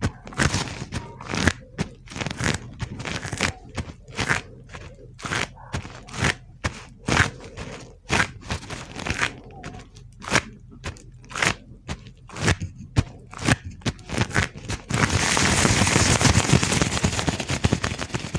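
Gloved hands crinkling and rubbing close to the microphone: short separate crunches about two a second, then from about fifteen seconds in a continuous dense crackling rub.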